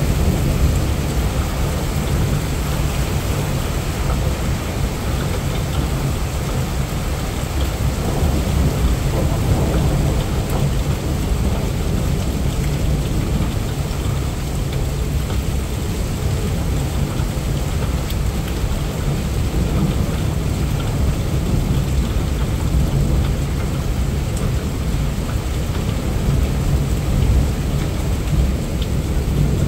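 Heavy rain pouring steadily, with a deep low rumble underneath throughout.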